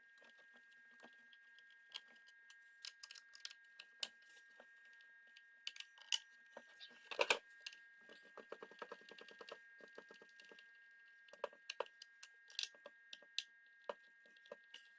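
Faint scattered clicks and light taps of small plastic and metal parts being handled while speakers are unscrewed from a housing, with a louder knock about seven seconds in and a quick run of rapid clicks just after it.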